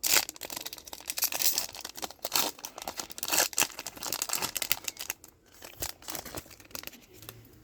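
Foil wrapper of a Pokémon TCG booster pack being torn open and crinkled by hand: a dense run of crackles that dies away about six and a half seconds in.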